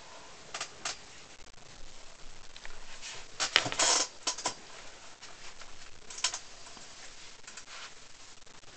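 Handling noise in a wire-barred hamster cage: scattered light clicks and scratchy rattles, with the loudest cluster about three and a half seconds in.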